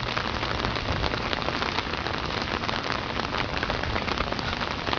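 Heavy rain striking an umbrella overhead, a steady dense patter of drops.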